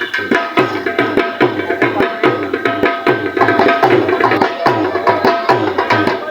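Dhol drums played in a quick, even beat, the low strikes dropping in pitch as they ring.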